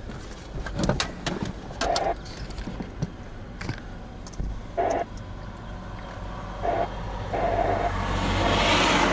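A vehicle engine idling steadily, with scattered clicks and a few short tones. Near the end, a rushing vehicle noise swells up loud, like a vehicle passing close by.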